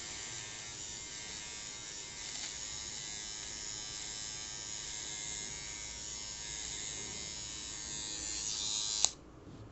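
Pen-style electric facial hair trimmer running on an eyebrow with a steady high whine. It cuts off suddenly with a click about nine seconds in.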